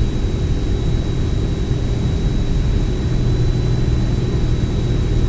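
Steady drone of a Piper single-engine piston plane's engine and propeller, heard inside the cabin in level flight, with a faint steady high whine over it.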